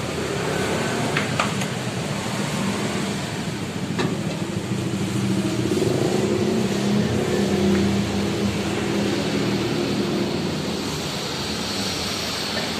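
A motor or engine running steadily with a low hum, its pitch swelling slightly for a couple of seconds midway, with a few sharp clicks and a knock about four seconds in.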